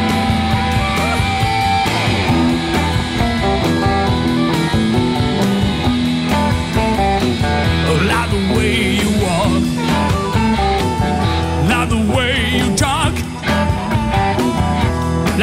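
Blues-rock band playing an instrumental passage: bass and drums keep a steady beat under electric guitar. From about halfway in, a lead line of wavering, bent notes comes over the top.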